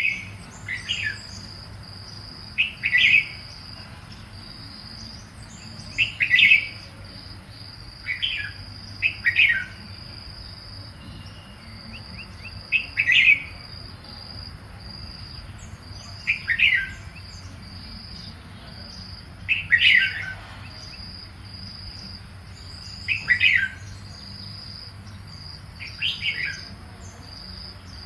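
Red-whiskered bulbul singing short whistled phrases, one every three seconds or so, over a steady high insect trill.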